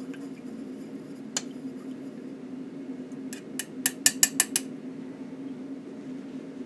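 A single light click, then about two seconds later a quick run of about eight sharp clicking taps of small hard objects, over a steady low hum.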